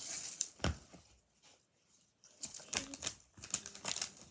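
Small clicks and rustles of toys and packaging being handled: one sharp click about two-thirds of a second in, then a quiet gap, then a run of irregular tapping clicks and rustling in the second half.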